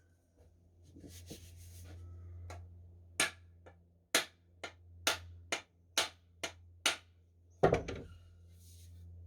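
Hammer blows on the wooden handle of a block-splitting maul as the head or wedge is driven home: about nine sharp knocks at roughly two a second, the last one the loudest. A steady low hum runs underneath.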